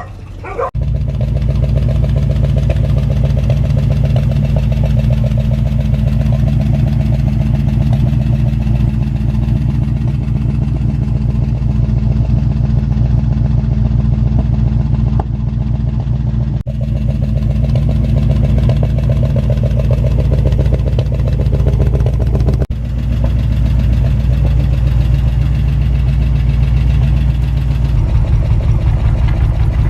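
1968 Ford F-100's 360 V8 idling steadily on fresh oil, with two brief dips in level around the middle.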